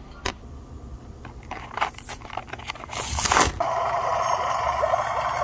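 Small clicks and scraping from plastic toy parts being handled. About three seconds in there is a louder rustle, then a steady buzzing whir that lasts about two seconds near the end.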